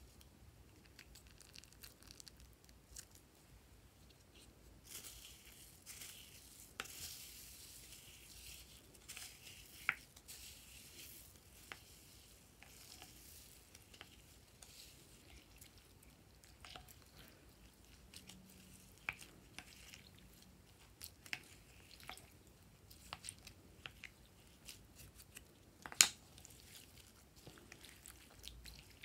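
Small foam beads crackling and crunching in slime as they are stirred with a plastic spatula in a glass bowl and kneaded by hand: scattered soft clicks and crackles, a denser stretch of crackling in the first half, and one sharp click near the end.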